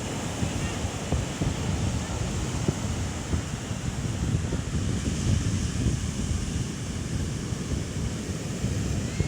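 Ocean surf washing onto the shore at high tide in strong wind, with wind buffeting the microphone in gusts.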